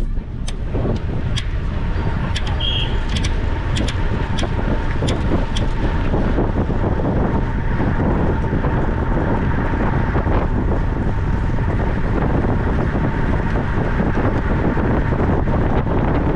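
Wind rushing over the microphone of a camera riding with a track bike at racing speed, with a steady thin whine and a few sharp clicks in the first few seconds.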